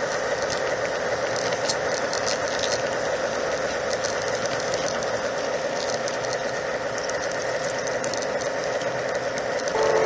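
Garden-scale model freight train rolling slowly on its track, heard from a car of the train: a steady rattle with irregular metallic clicks from the wheels and running gear. A whistle begins right at the end.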